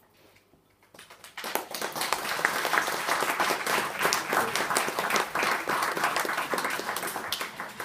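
Audience applauding, starting about a second in, quickly full and tapering off near the end.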